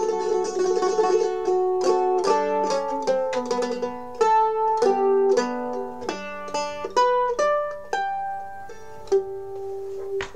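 Teardrop-shaped A-style mandolin played solo with a pick: a melody of single picked notes that slows near the end and settles on a long-held final note about nine seconds in.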